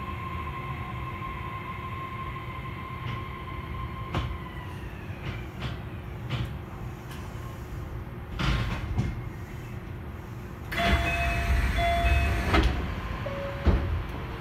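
Osaka Monorail 3000-series train running along its guideway, heard from on board: a steady whine fades out about four seconds in. A few short knocks follow, then a louder rushing stretch with faint tones near the end.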